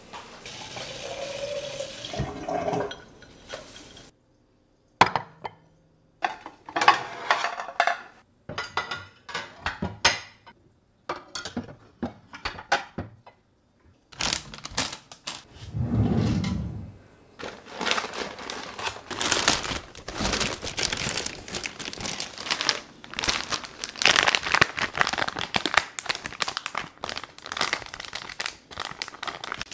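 Household handling sounds at a kitchen counter and sink: clicks and knocks of objects set down on the stone counter, a short rush of water about halfway through, then plastic food packaging crinkling and rustling steadily as it is handled.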